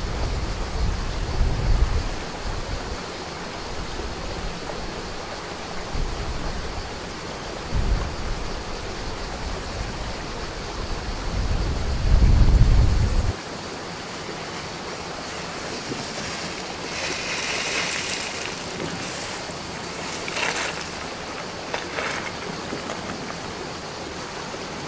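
Strong wind buffeting the microphone in low rumbling gusts over a steady rush of wind. The buffeting stops abruptly about halfway through, leaving a softer windy hiss broken by a few short, sharper bursts.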